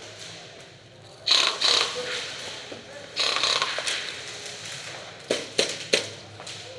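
Airsoft guns firing: two short bursts of noise, then three sharp single shots in quick succession near the end.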